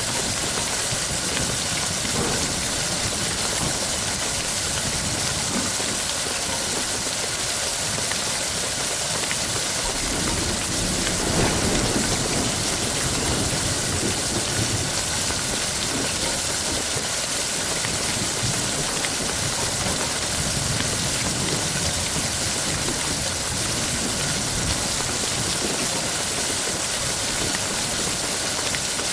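Steady rain, an even hiss of drops, with a brief low rumble about eleven seconds in.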